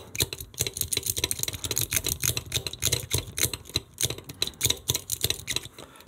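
Steel lock pick jiggled back and forth in the keyway of a 1980s Assa bike lock under very heavy tension, making rapid, irregular metallic clicking and rattling. The heavy tension is there to overcome the spring tension on the lock's sliders.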